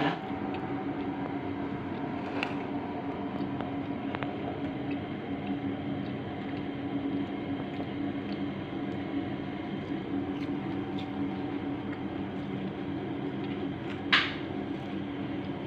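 A steady low machine hum, like an appliance running, with one sharp clack near the end.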